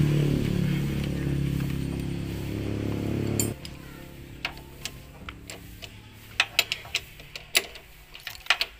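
A loud steady drone that cuts off suddenly about three and a half seconds in, followed by a string of sharp metallic clicks and taps of hand tools on motorcycle parts.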